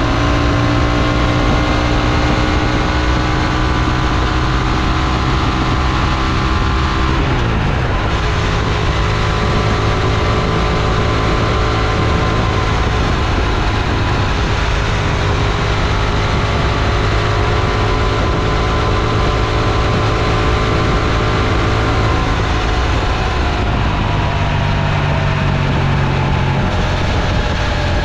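Honda XL750 Transalp's parallel-twin engine running steadily. Its pitch drops sharply about seven seconds in, holds steady, then falls slowly again near the end.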